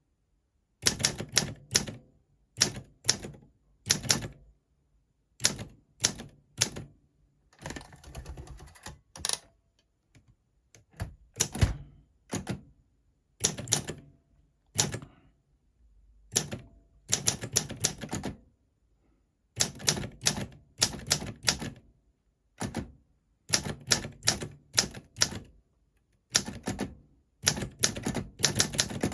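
1959 West German Olympia SM4 portable manual typewriter being typed on: sharp keystrokes in quick bursts separated by short pauses. About eight seconds in there is a longer, steady noise lasting about a second and a half.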